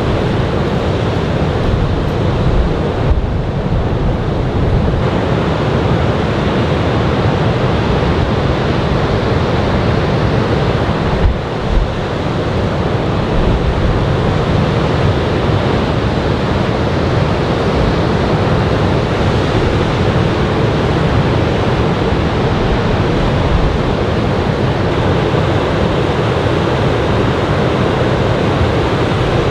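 Ocean surf from a typhoon swell breaking on a sandy beach, a steady wash of waves, with wind on the microphone.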